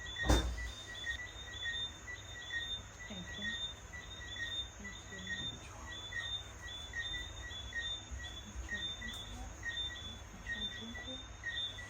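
Insects chirping steadily outdoors: short chirps repeating several times a second at two high pitches. A single sharp knock comes right at the start.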